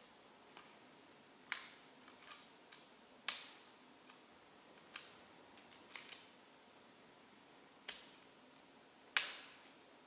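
Lock pick clicking against the pin stacks of a clear acrylic practice padlock during single pin picking: about a dozen sharp, irregular metallic clicks with short ringing tails, the loudest near the end.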